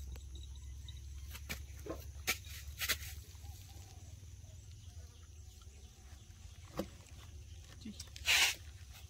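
Baby monkeys and a dog scuffling in play: scattered light taps and scuffs, a few faint squeaks, and a short, louder rough burst about eight seconds in, over a low steady hum.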